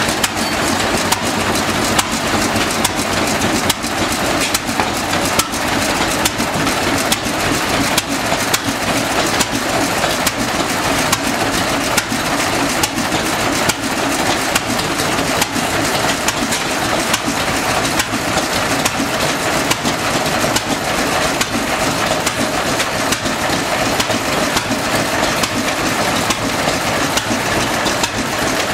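Several vintage single-cylinder stationary engines running at once, a steady mix of many overlapping exhaust beats and mechanical ticks.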